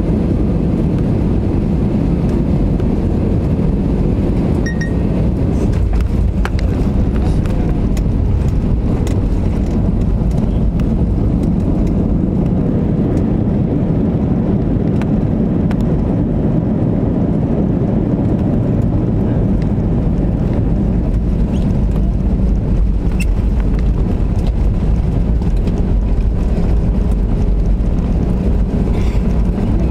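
Airliner cabin noise during the landing rollout: a steady, loud rumble of the jet engines and the wheels on the runway with the ground spoilers raised, and occasional light rattles from the cabin.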